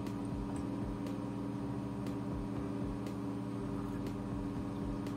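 Fume hood exhaust fan running with a steady, even hum, with a few faint ticks.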